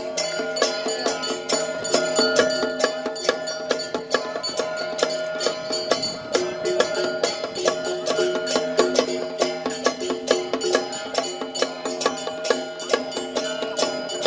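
Traditional Chinese temple procession music: a held melody line over rapid, busy percussion strikes, several a second, with no break.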